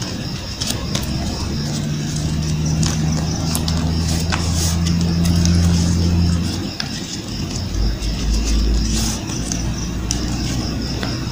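A low steady droning hum like a motor running, which dies away about six and a half seconds in, followed by a dull thump. Over it come scattered faint crisp clicks of paper being folded and creased.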